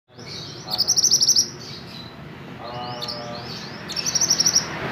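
Male mantenan songbird singing: two quick, high trills about three seconds apart, with shorter sliding chirps between them.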